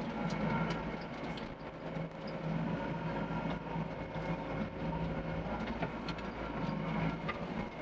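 Doosan DX55 excavator's diesel engine running steadily under hydraulic load, with scattered sharp clanks and knocks from the machine working earth.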